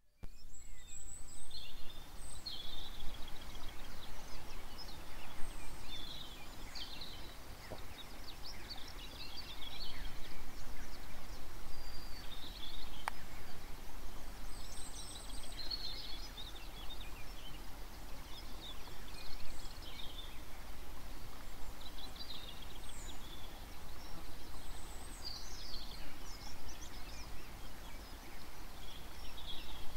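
Outdoor ambience of many wild birds calling and singing, short chirps and trills coming every second or two, over a steady low rumble.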